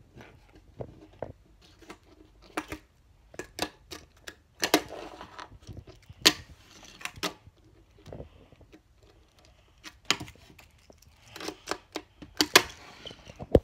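A Tech Deck fingerboard being popped and landed on a wooden tabletop: irregular sharp clacks of the board and its wheels striking the wood, some in quick pairs and clusters.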